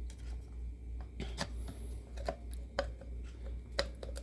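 Irregular light clicks and taps of small snow globe parts being handled and fitted together, over a steady low hum.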